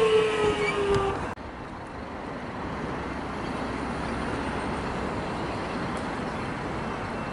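Electric suburban train's traction motors whining, falling slowly in pitch as it brakes into the station. About a second and a half in this cuts off abruptly to a steady, quieter rumble of road traffic around the train standing at the platform.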